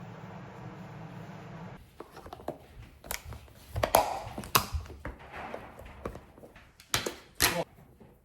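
A steady background hum stops suddenly, followed by scattered sharp taps and knocks, the loudest about four seconds in and two more close together near the end.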